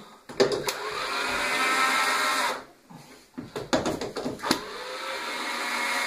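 Cordless screwdriver running twice for about two seconds each time, its whine rising as it spins up and then holding steady, backing out screws; a few sharp clicks between the runs.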